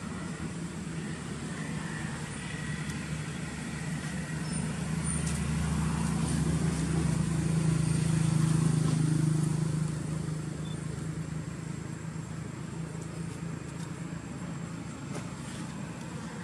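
A motor engine's low hum that builds over several seconds, is loudest about eight to nine seconds in, then drops back, as a vehicle going by would.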